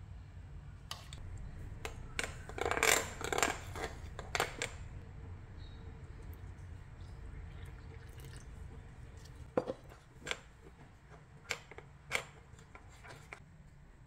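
A metal spoon scraping and clinking against a glass mixing bowl as flour, sugar and baking soda are stirred: a quick run of scrapes in the first few seconds, then a few single clinks later. A low steady hum runs underneath.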